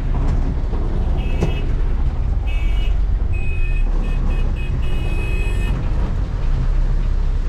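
Steady low rumble of a Volvo B8R bus's engine and tyres on a wet road, heard from inside the cabin. Vehicle horns honk over it: a short toot about a second in, another at about two and a half seconds, then a run of honks from about three to nearly six seconds in.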